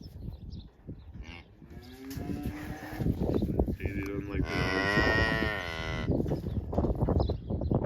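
Cattle mooing twice: a short, low call about two seconds in, then a longer, louder moo around the middle. Soft knocks and rustling run underneath.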